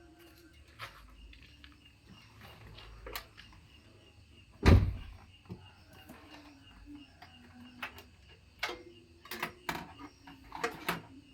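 Scattered clicks and knocks of parts and tools being handled, with one loud thump about five seconds in and a quick run of sharp clicks near the end.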